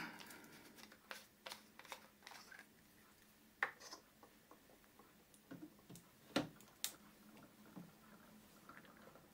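Faint, scattered clicks and taps of plastic as an ink bottle is uncapped and set upside down onto a printer's ink-tank filler, the sharpest about a third of the way in and again about two-thirds in.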